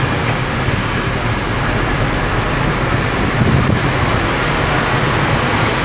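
Scania P310 truck's diesel engine running and road noise heard inside the cab while driving, a steady low rumble that swells briefly about three and a half seconds in.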